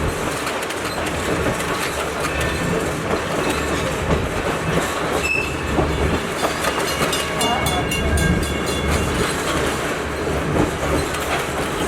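Passenger train running along the rails: a steady rumble with wheels clicking over rail joints, and faint high wheel squeals about five seconds in and again from about six and a half to nine seconds.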